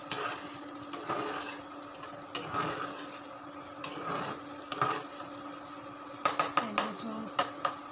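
A cooking utensil stirring a thick tomato sauce in a stone-coated frying pan, scraping and knocking against the pan, with a quick run of sharp taps about six to seven and a half seconds in. A steady hum runs underneath.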